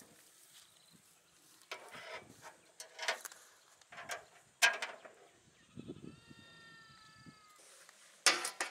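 Metal tongs clinking and scraping against the grate and drum of a barrel grill, several sharp knocks, the loudest near the end. About six seconds in, a single drawn-out animal bleat lasting over a second, falling slightly in pitch.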